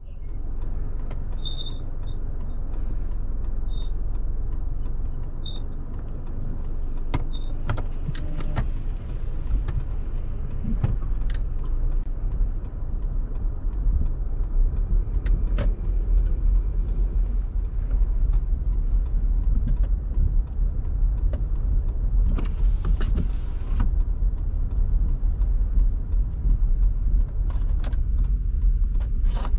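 Car driving on the road: a steady low rumble of tyre and engine noise, with scattered clicks and rattles and a few short high beeps in the first eight seconds.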